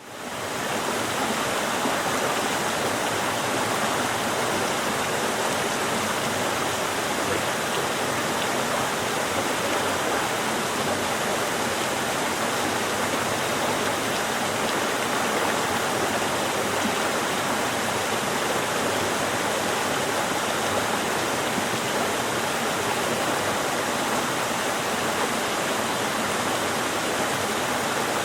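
River water rushing steadily through a rocky gorge, a constant even sound that fades in over the first second.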